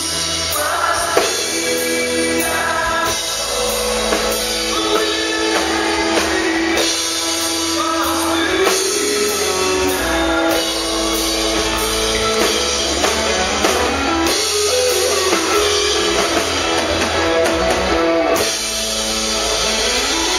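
Live rock band playing loudly: a man singing over electric bass, drum kit and electric guitar.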